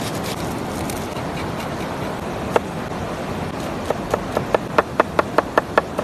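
A large knife chopping red chili on a wooden board: a quick run of about a dozen sharp knocks, roughly five a second, in the second half. A river rushes steadily underneath.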